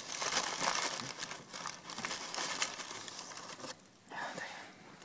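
A person eating a KFC Zinger Tower burger close to the microphone: wet chewing and biting with a dense crackling and crinkling. It eases off briefly near the end, then comes back in a short burst.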